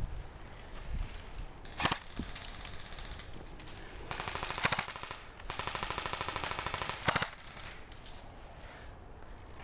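Airsoft guns firing: a single sharp shot about two seconds in, then two rapid full-auto bursts of fast, evenly spaced clicks in the middle, the second ending in a louder crack.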